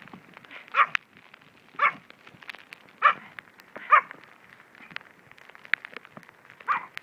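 Dog barking: five sharp barks, four about a second apart, then a pause of nearly three seconds before the fifth, with faint clicks between them.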